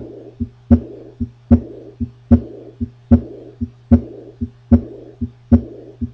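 Recorded heart sounds of pulmonic insufficiency (pulmonary valve regurgitation): a regular beat at about 75 a minute, each loud heart sound followed by a soft blowing murmur that fades away, then a softer heart sound. A steady low hum runs underneath.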